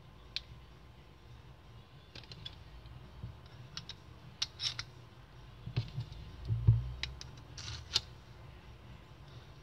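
Metal clicks and light taps as a square steel spindle is handled and slid into the rosettes of a pair of door lever handles. A duller, low knock about two-thirds of the way in is the loudest sound.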